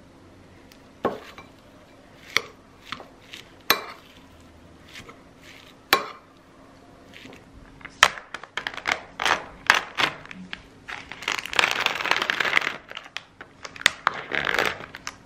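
A few scattered clicks, then from about eight seconds in a dense crackling and crinkling of plastic cling film being peeled off a takeaway food tray, heaviest in two spells near the end.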